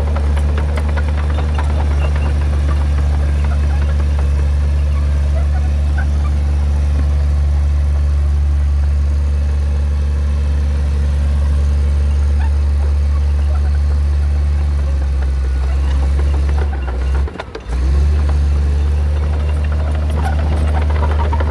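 Motor grader's diesel engine running steadily under load with a deep, even drone, dipping briefly about three-quarters of the way through.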